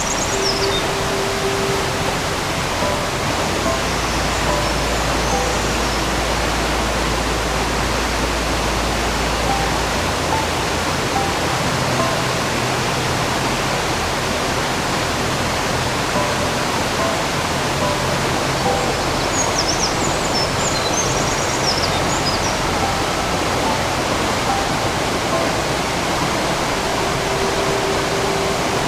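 Oirase Gorge mountain stream rushing steadily, with a bird chirping briefly near the start and again about twenty seconds in.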